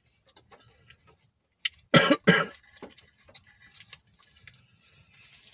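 A man coughs twice in quick succession about two seconds in, over faint crinkling of a foil food wrapper being handled.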